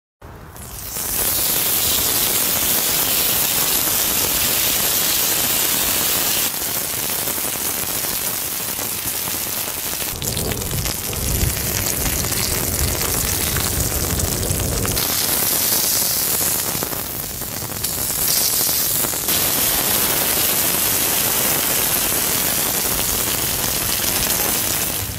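Meat sizzling as it fries in hot oil on a flat griddle: a steady, dense sizzle whose tone shifts every few seconds, with a deeper, heavier patch in the middle.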